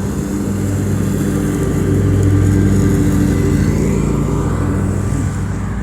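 Lawn mower's small engine running steadily, getting a little louder about two seconds in and then easing back.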